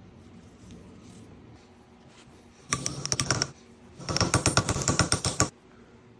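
Two bursts of rapid mechanical clicking, the second one longer.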